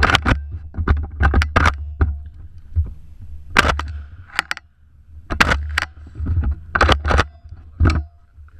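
Saiga semi-automatic shotgun firing a string of about a dozen shots at uneven spacing, several in quick pairs, over a steady low rumble.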